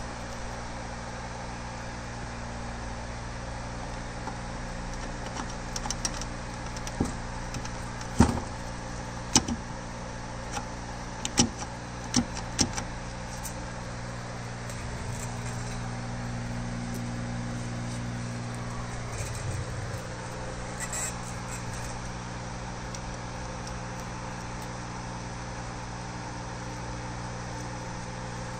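Sharp metallic clicks and knocks of transmission parts and tools being handled during gearbox assembly. They come as a cluster of about eight in the first half, over a steady low hum.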